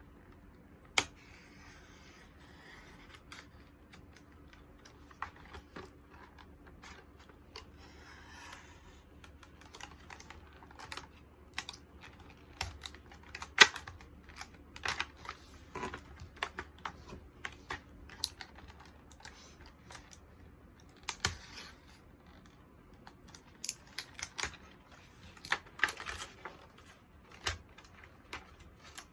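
Items and packaging being handled during unboxing: irregular taps and clicks with short bursts of rustling, and one sharper knock about a second in and another about halfway through.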